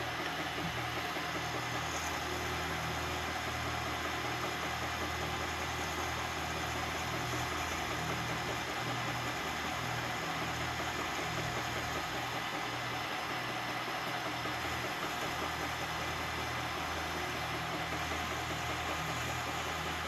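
Milling machine running steadily as its end mill cuts a carbon fiber handguard.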